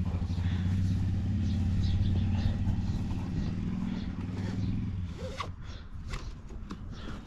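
A motor vehicle's engine running with a steady low hum, fading out about five seconds in. A few light clicks follow as a tie-down strap and its buckle are handled.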